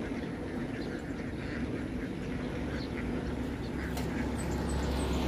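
Many ducks quacking in short, scattered calls from a truckload of ducks. A low engine rumble grows louder near the end.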